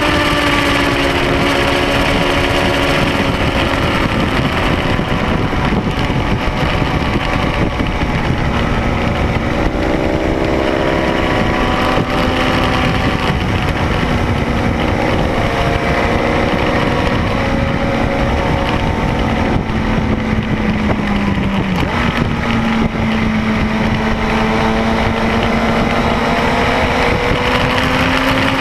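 Triumph Speed Four's inline-four engine pulling hard around a race track, its pitch rising and falling as the rider accelerates, brakes and shifts gears. Constant wind rush on the bike-mounted camera.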